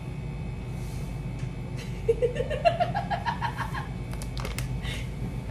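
A woman's short wordless vocal sound that climbs in pitch in quick stuttering pulses, like a stifled whimpering laugh of disgust, over a steady low hum. A few sharp crinkles of a plastic bag come near the end.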